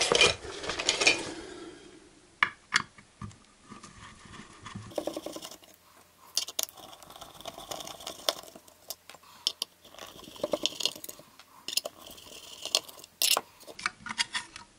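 Small metallic clicks, taps and scrapes as screws are driven out of an LED floodlight's aluminium housing with a screwdriver and set down, with a denser clatter of handling in the first second.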